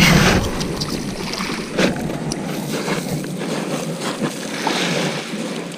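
Steady rush of sea and wind noise on the microphone at the shoreline, broken by a few sharp knocks, one just under two seconds in.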